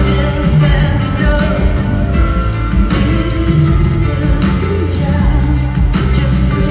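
Live band music: a woman singing over drums and a heavy low end with a steady beat.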